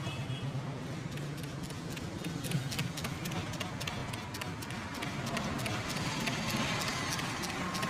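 Rapid, irregular sharp taps and clicks over a steady low hum, with a steady tone coming in about five and a half seconds in.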